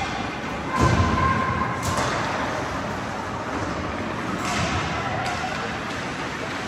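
Ice hockey play heard from the stands of an indoor rink: a steady arena hum with skating, a dull thud about a second in, and a few sharp knocks of sticks or puck later on.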